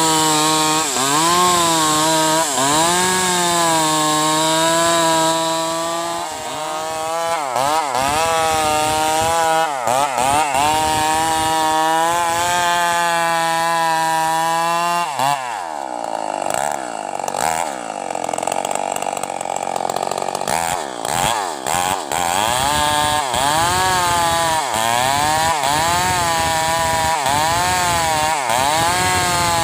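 VTS MS 381 two-stroke chainsaw ripping an acacia log lengthwise along the grain. The engine runs at full throttle with its pitch sagging and recovering as the chain loads up in the cut. About halfway through it drops to lower, uneven revs for several seconds, then goes back to full revs, dipping in pitch about once a second.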